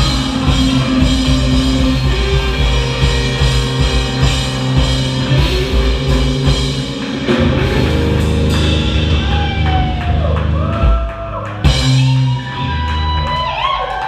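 Live rock band playing loud: electric guitar, electric bass and a drum kit. Near the end the drumming gives way to held guitar notes that bend in pitch.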